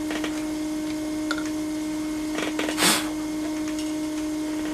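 A steady machine hum runs throughout. Over it come a few light clicks and knocks of handling, and a short loud rush of noise about three seconds in.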